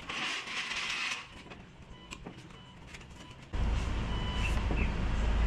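A short hiss in the first second. Then, about three and a half seconds in, a low, steady motor rumble starts suddenly and keeps running.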